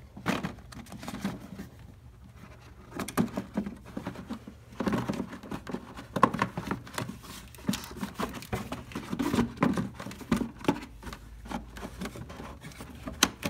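A new pleated panel air filter being handled and pressed into its plastic air-filter housing: irregular light clicks, taps and scrapes of plastic, with a sharper click near the end.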